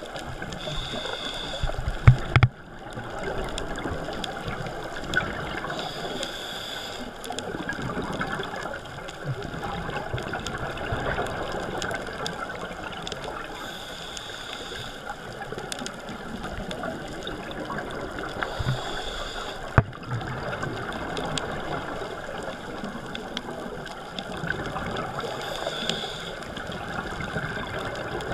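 Scuba regulator breathing heard underwater through a camera's waterproof housing: a hiss of drawn breath about every five to seven seconds over a steady muffled bubbling of water and exhaled air. A few sharp knocks, two about two seconds in and one about two-thirds through.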